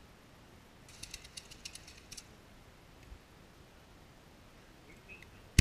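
Faint crackling of firework stars: a cluster of small, quick pops about a second in, lasting about a second, in an otherwise quiet lull.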